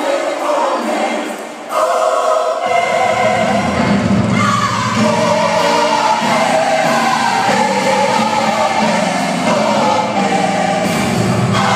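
Large gospel choir singing an old standard with accompaniment. The sound thins briefly about a second and a half in, then fills out with low notes from about three seconds in.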